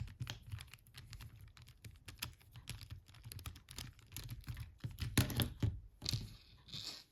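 Quick light clicks and taps of a small Torx screwdriver working screws out of a mobile phone's plastic housing, with a louder cluster of clicks about five seconds in.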